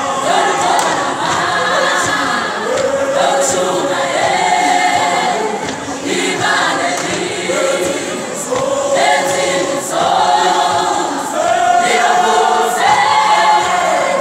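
A large choir singing a South African choral song in harmony, moving through long held chords.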